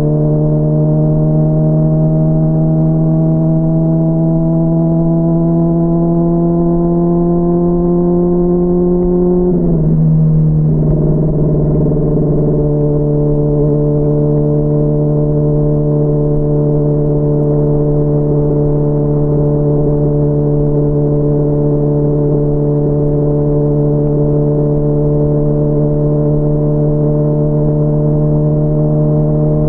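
Honda CBR600RR's inline-four engine under way, its revs climbing slowly, then dropping sharply about nine or ten seconds in before holding at a steady cruise. It sounds muffled, picked up from inside the rider's backpack.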